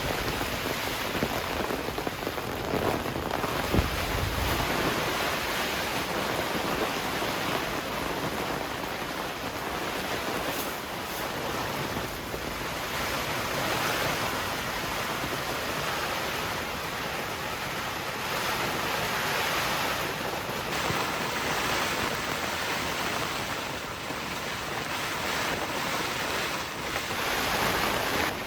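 Heavy rain pouring steadily, with one low thump about four seconds in.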